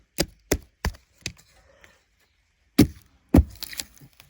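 Irregular sharp knocks and chops on wood: a tool striking the tree stump to knock bark off. A few lighter taps come first, then heavier blows about three seconds in. There is no chainsaw motor running.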